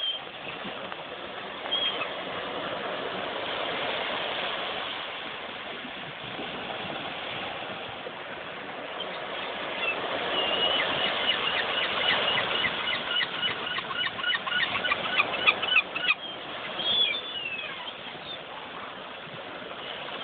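Gulls calling: a few single cries, and a rapid run of short repeated calls lasting several seconds in the middle, over a steady rush of wind and surf.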